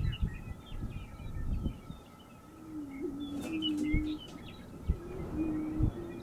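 Greater prairie chickens booming on a lek: low, hollow, moaning notes, a few in a row and partly overlapping, each lasting a second or more, starting about two and a half seconds in. Higher chirping calls run over them throughout.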